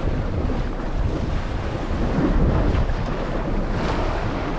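Strong wind buffeting the microphone over the wash of choppy sea around the boat: a steady rough rumble.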